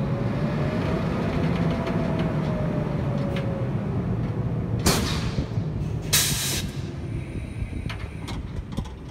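Electric locomotive standing with its pantograph lowering off the overhead wire: a steady low electrical and fan hum with a faint tone that rises briefly and then slowly falls, two sharp hisses of air about five and six seconds in, and the running noise dropping away near the end as the locomotive powers down.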